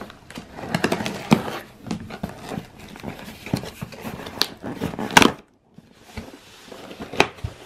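Cardboard shipping box being opened by hand: the slit packing tape peeled back and the cardboard flaps pulled open, a run of irregular crackles, scrapes and taps.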